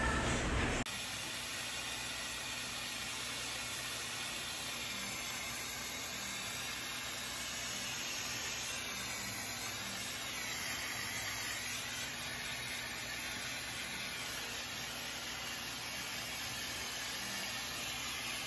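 Salon nano-mist steamer hissing steadily as it sprays fine mist into a shampoo bowl over the hair, a treatment given before dyeing. The hiss starts about a second in and stays even throughout.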